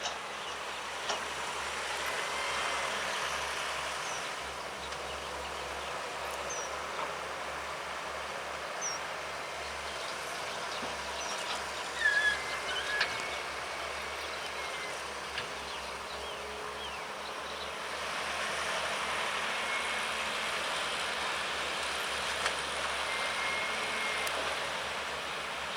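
Sumitomo SH210 long-reach excavator running steadily while it digs, its diesel engine and hydraulics a continuous noisy sound, with a few short high chirps over it.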